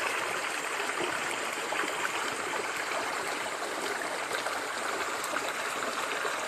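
River water running steadily, an even rushing sound flecked with small brief splashes.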